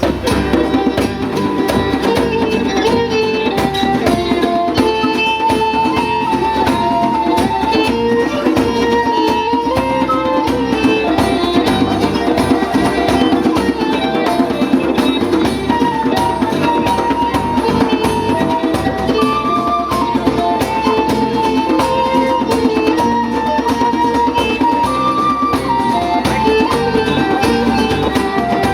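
A folk band playing an instrumental passage: a stepping melody over fast, steady hand percussion.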